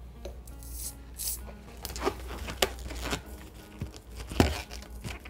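Inflated latex twisting balloons being handled and tied: latex rubbing and crinkling against itself, with a few sharp clicks between about two and four and a half seconds in as the knot is pulled tight.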